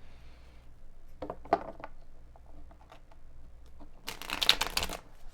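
Tarot cards being handled, with a few soft taps and clicks, then a quick, crisp riffle-shuffle of the deck about four seconds in, lasting about a second.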